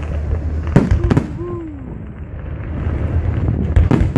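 Fireworks shells bursting: two sharp bangs close together about a second in, and another cluster of bangs near the end, over a steady low rumble.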